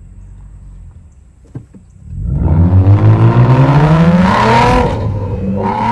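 Lexus car engine under hard acceleration: after two seconds of quiet running, it gets suddenly loud and revs up with a steadily rising pitch, then falls back near the end as the revs drop.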